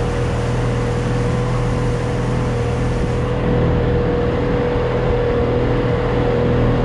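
Small motorboat's outboard motor running steadily at low speed, a constant hum with a steady whine, under a wash of water and wind noise.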